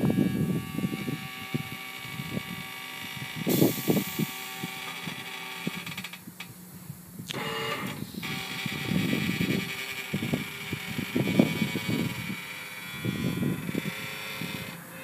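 Workshop clatter: irregular metallic knocks and clanks over a steady mechanical hum, with a high hiss setting in about three and a half seconds in.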